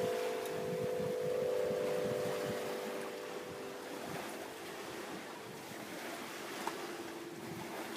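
Wind harp strings sounding in the wind off the water: several steady overlapping tones that slowly fade, with a lower tone coming in a little past halfway, over a steady rush of wind.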